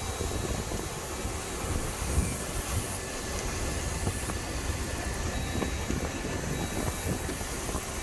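Jeep driving across a field: a steady rumble of engine and tyres with wind noise on the microphone.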